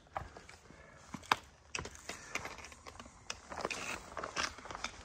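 A hiker's footsteps on dry leaf litter, roots and rock, making irregular crunches and sharp clicks, the loudest click about a second in.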